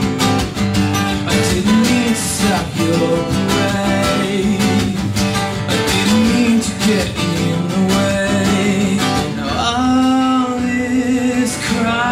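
Two acoustic guitars strummed and picked together in an instrumental passage of a live song, with a sung note held near the end.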